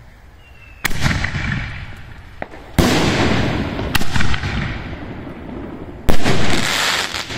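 Aerial fireworks bursting overhead: four loud bangs over about five seconds, each trailing off in a long rolling echo, with a smaller crack between the first two.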